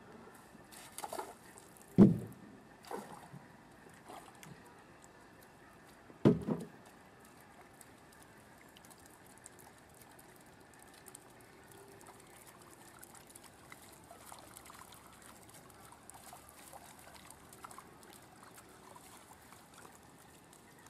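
Cast net being hauled back through pond water: a few sudden splashes and thumps in the first seven seconds, the loudest about two seconds in, then faint trickling and small ticking of water as the net is drawn toward the bank.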